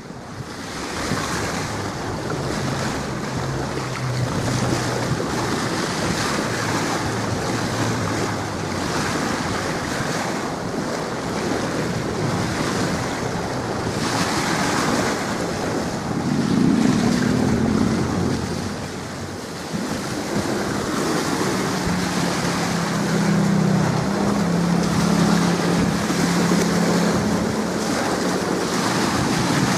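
Strong wind buffeting the microphone over the wash of choppy waves, a steady rushing noise. A low hum comes and goes beneath it, most noticeable about halfway through and again in the last third.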